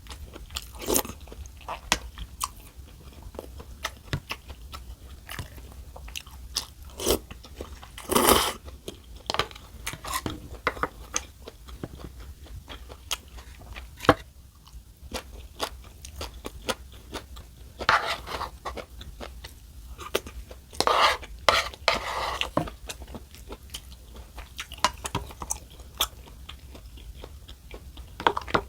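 A person eating close to the microphone: chewing and crunchy bites with frequent sharp clicks, and a few longer noisy stretches, at about 8 seconds, 18 seconds and 21 to 22 seconds in.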